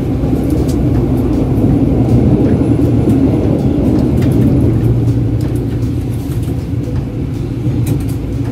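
Electric commuter train running, a steady low rumble.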